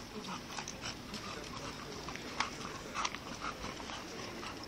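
English bulldog panting in short, irregular huffs as it walks on a leash.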